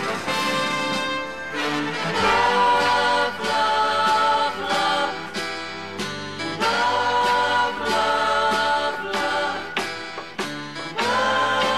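Background music with singing voices holding long notes over instruments.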